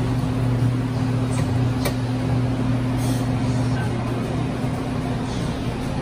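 Automatic bean-to-cup coffee machine running its grind-and-brew cycle for a cup of fresh-ground coffee: a steady motor hum over a whirring noise. A higher part of the hum drops out a little past halfway.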